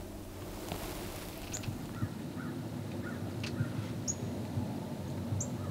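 Birds calling outdoors: a handful of short, high chirps and a few fainter calls, over a low rustling background.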